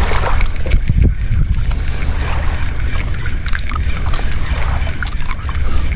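Wind buffeting the microphone: a loud, uneven low rumble, with a few brief clicks.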